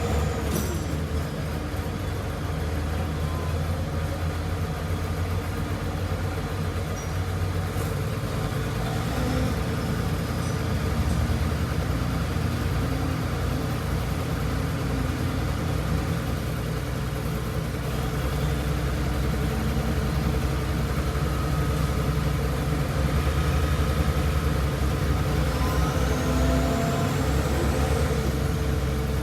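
Heavy diesel machinery running steadily, a low engine rumble that grows a little louder near the end. A faint rising whine sounds at the start and again near the end.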